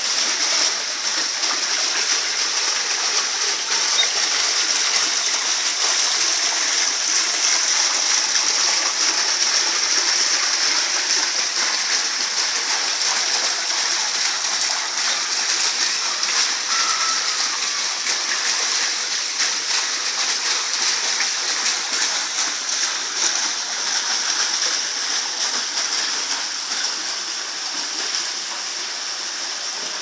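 Water from an artificial waterfall splashing into a pond: a steady splashing hiss that eases slightly near the end.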